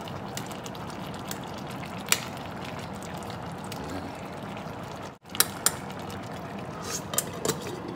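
Pot of fish and cabbage broth simmering on the stove, a steady bubbling hiss, with a few light clinks of a metal spoon and lid against the stainless-steel pot, more of them near the end.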